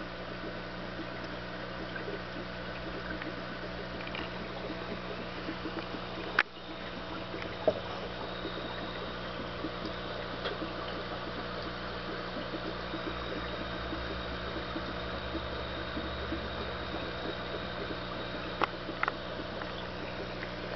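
Aquarium filter running: a steady hum with water trickling and bubbling. A few sharp clicks cut through it, the loudest about six seconds in and two more near the end.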